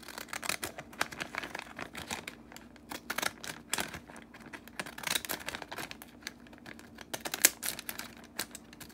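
Decorative-edge craft scissors cutting along the edge of a striped treat bag: a run of quick, irregular snips with paper crinkling, one snip louder than the rest about seven seconds in.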